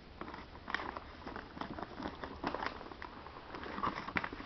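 Brown paper gift wrapping rustling and crinkling in short, irregular bursts as it is handled and pulled open by hand.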